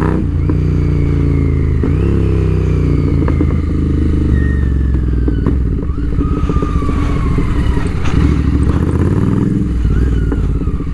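Royal Enfield Interceptor 650's parallel-twin engine running through an aftermarket SS Motocorp exhaust at low speed, its pitch rising and falling with the throttle. A run of sharp crackling pops comes from the exhaust in the second half.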